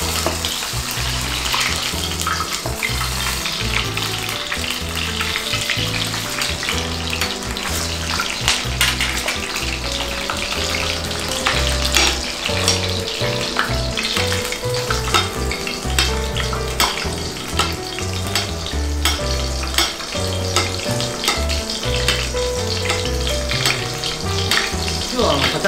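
Rack of lamb sizzling and crackling in hot oil in a stainless steel frying pan during its final sear, with hot oil spooned over it to baste it. Soft background music with a stepped bass line plays underneath.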